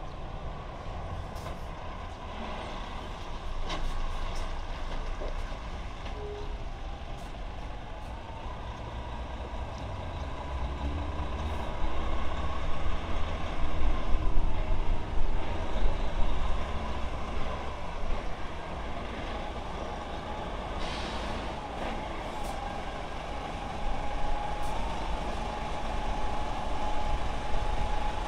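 Hino heavy truck's diesel engine running with a low rumble as the truck pulls slowly forward, with a short hiss of air brakes about two-thirds of the way through and a thin steady whine in the second half.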